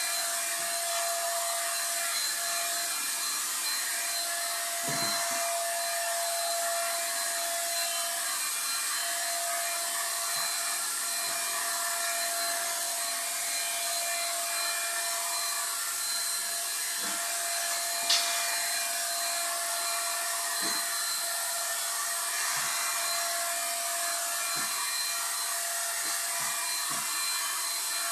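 Corded handheld electric power tool running continuously on a wooden cabinet: a steady motor whine with a hiss over it. There are a few soft knocks and one sharp tick about 18 seconds in.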